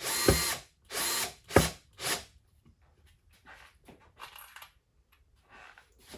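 Power drill driving screws into a wooden tabletop in four short trigger bursts, with a sharp knock in two of them. Faint handling and rustling noises follow.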